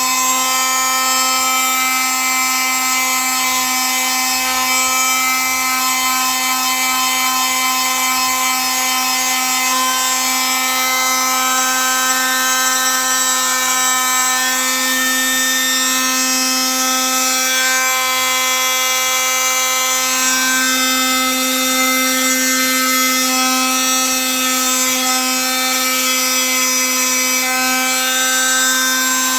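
Electric power tool running steadily with an even, pitched whine, working wood.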